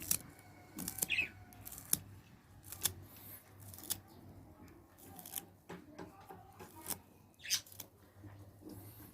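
Fresh dill being cut into small pieces: sharp, irregular cutting clicks, about one a second.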